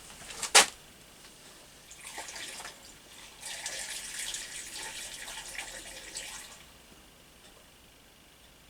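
A sharp click, then petrol pouring from a container into a motorcycle fuel tank: a short splash about two seconds in, then a steady pour for about three seconds that stops well before the end.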